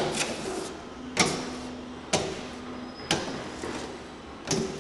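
A Triumph razor window scraper worked against window glass. Five sharp clicks come about once a second, each trailing off over about half a second.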